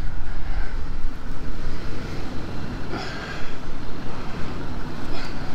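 Off-road vehicle engines idling steadily, a low continuous rumble.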